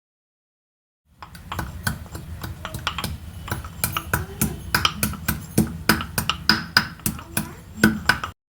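A quick, uneven series of sharp taps and clicks over a low steady hum, starting about a second in and growing busier.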